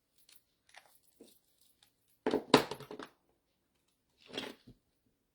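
Cardstock and craft supplies being handled on a work table: a few soft clicks, then a louder crinkling rustle about two seconds in and a shorter rustle near the end.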